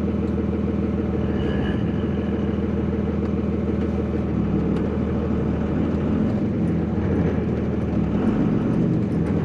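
Cummins diesel engine running as the truck drives slowly in a low gear. The engine note shifts about four seconds in and again near the end.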